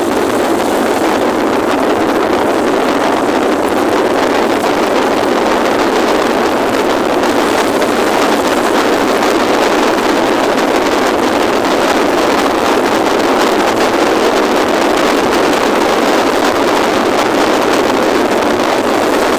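Steady rushing noise of a car driving on a rain-wet road, tyres on wet pavement and wind blending into an even roar.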